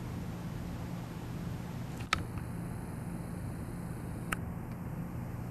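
52-inch NuTone Decorator ceiling fan running on low speed: a steady low hum over an even hiss. Two short sharp clicks come about two seconds in and again about four seconds in.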